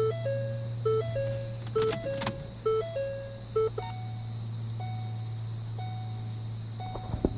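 Electronic beeping tones over a steady low hum: a short three-note figure repeating about once a second, changing about four seconds in to a single beep about once a second, with a few sharp clicks near the end.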